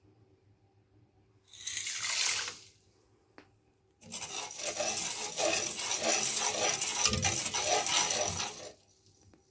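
Pouring into a jar: a short pour of about a second, then a longer pour of about four and a half seconds with many small clinks against the container.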